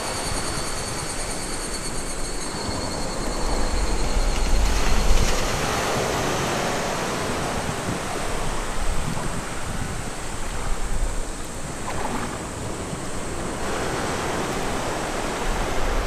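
Small ocean waves breaking in the shallows and washing up a sandy beach, splashing against a boulder. The surf swells louder every few seconds, loudest about five seconds in.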